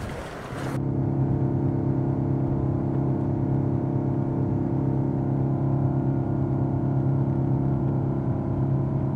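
Shuttle boat's engine running steadily, a low even drone that comes in abruptly about a second in.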